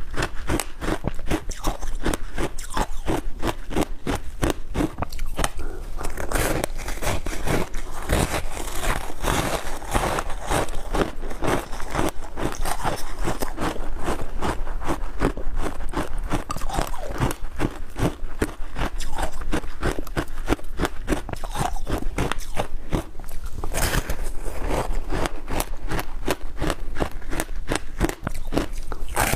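Close-miked crunching and chewing of ice coated in passion fruit pulp: rapid, irregular crackling bites that go on without a break.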